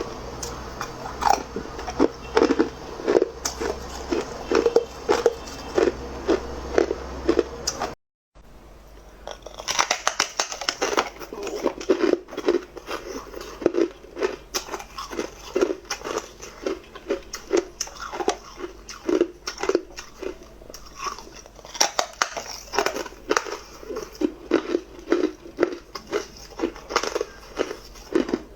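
Close-up crunching of hard ice being bitten and chewed, one sharp crunch after another. The crunching breaks off for a moment of silence about eight seconds in, then resumes.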